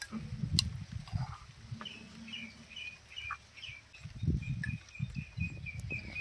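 A small bird chirping in short repeated notes, settling into an even run of chirps near the end, over dull low thumps and rumbles that are the loudest sounds, mostly at the start and again about four seconds in.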